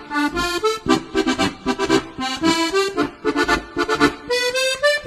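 Accordion music: a quick melody of short notes over a steady rhythm.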